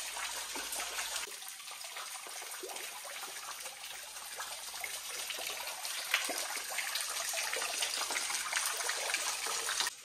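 Water falling and trickling over rocks: a steady splashing patter.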